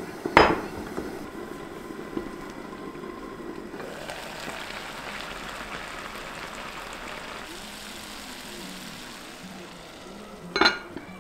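Two sharp clinks of kitchenware, one just after the start and one near the end. In between, chestnuts simmering in a little water in a glass pot on the stove give a soft bubbling hiss for a few seconds.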